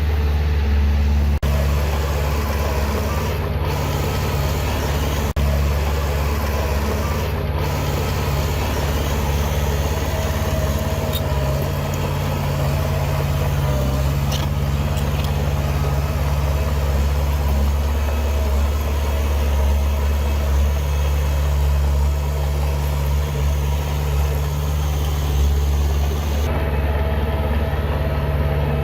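Heavy diesel engine of earthmoving machinery running steadily at an even, low pitch.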